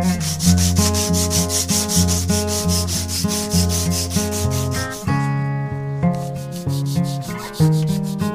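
Strip of sandpaper pulled rapidly back and forth around a wooden knife handle, shoeshine-style: a rhythmic rasping of about four strokes a second that stops about five seconds in, then fainter strokes. Acoustic guitar music plays underneath throughout.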